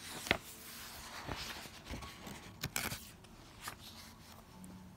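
A picture-book page being turned by hand: paper rustling and swishing, with a few light clicks and taps. The sharpest click comes about a third of a second in, and two more come near the three-second mark.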